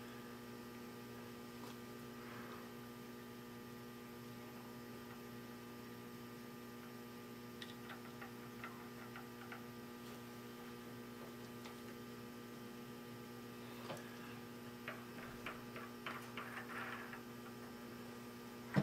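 Steady electrical mains hum, with a scatter of faint light clicks about eight seconds in and again near the end as the chuck and tap are handled.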